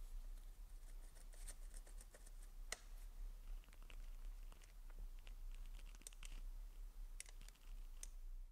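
Faint, scattered small clicks and scrapes of a screw being worked by gloved fingers into a threaded hole at the end of a metal rail stiffener, trying to get it to catch its thread.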